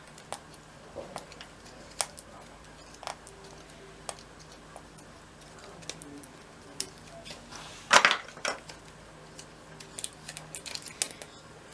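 Scattered light clicks and taps of small plastic toy pieces and packaging being handled, with a brief louder rustle about eight seconds in.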